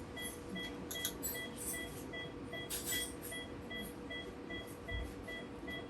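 Steady, rapid electronic beeping, about three short beeps a second at a fixed pitch, typical of a surgical monitor sounding each heartbeat of an anaesthetised cat. Brief rustling handling noises come and go, with a soft low thump near the end.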